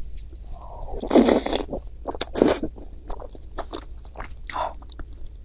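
Close-miked eating sounds: bites and chewing with short crunchy clicks, the loudest bursts about a second in and again around two and a half seconds.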